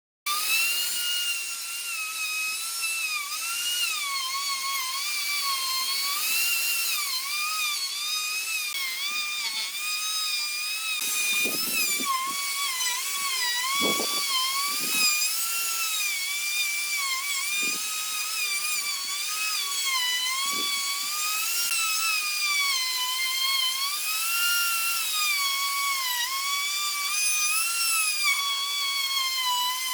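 A small electric power tool running with a high-pitched whine whose pitch dips and rises a little as it is worked under load, with a few low knocks around the middle.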